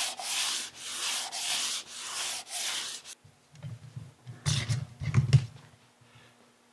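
Hand sanding of the filled emblem area on a car's front bumper: sandpaper rubbed back and forth in steady strokes, about two a second, stopping about three seconds in. A few low knocks and handling sounds follow about a second later.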